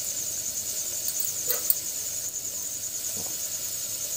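A steady, high-pitched pulsing trill, with a couple of light clicks about a second and a half in.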